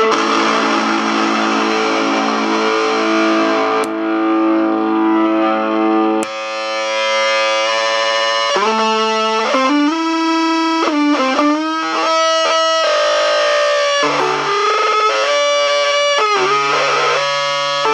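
Electric guitar played through an Unreachable Void distortion, tremolo and reverb pedal: sustained distorted chords, then a click about six seconds in and the sound changes to single notes with string bends.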